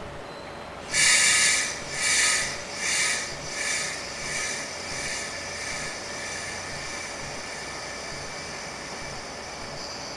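Compressed air hissing from the standing Twilight Express sleeper train. It starts loud about a second in, comes in pulses about every 0.7 s that fade over a few seconds, then settles into a steady high hiss with faint ringing tones.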